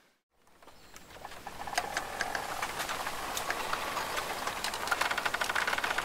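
Rain falling, with scattered drops ticking sharply on a nearby surface. It fades in from a brief silence at the start and is steady by about two seconds in.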